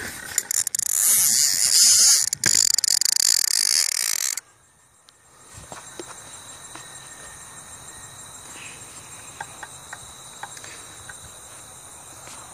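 A loud, rough hiss rubbing on the phone's microphone for about four seconds, cutting off suddenly. After that come faint steps through tall dry grass over a steady, high chirring of field insects such as crickets.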